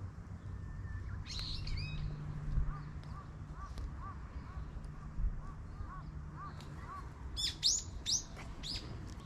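Small birds chirping: a short burst of chirps about a second and a half in, then soft short notes repeated about twice a second, and a quick run of loud, sharp downward-sliding chirps near the end.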